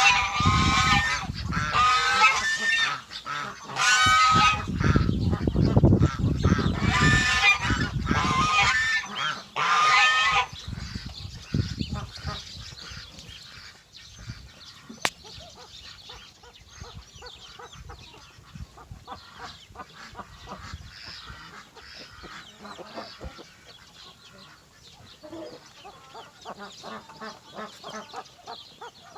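Poultry calling loudly: about six harsh, pitched honking squawks over roughly ten seconds. After that come quieter, scattered clucks.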